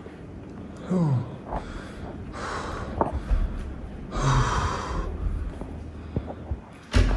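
A man's heavy, startled breathing and gasps, with a short falling vocal sound about a second in and the loudest gasp about four seconds in. Low handling rumble from the handheld camera runs underneath.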